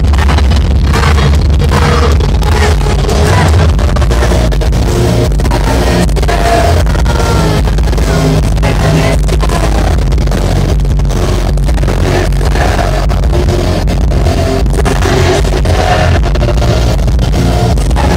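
Rock band playing live and loud, with drums and guitars under a male lead singer at the microphone; the low end is heavy.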